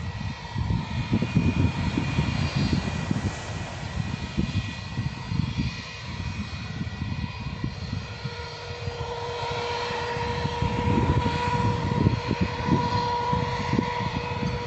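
Twin-engine jet airliner's engines whining steadily at low power as it taxis, over a gusty low rumble. The whine grows louder and gains a lower tone from about eight seconds in.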